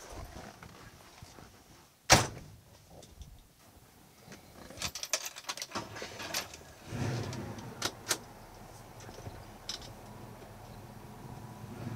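A car door slams shut about two seconds in, followed by a flurry of clicks and rattles. Around seven seconds in the 1965 Chevrolet Malibu SS's engine starts and runs at a steady idle, with two sharp clicks soon after.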